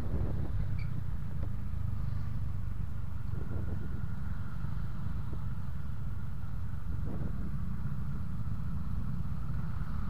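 Honda Scoopy 110 scooter's single-cylinder engine running steadily while riding in slow motorcycle traffic, under a heavy, steady low rumble. A faint steady whine sits above it, and a few brief swells from nearby motorcycles pass.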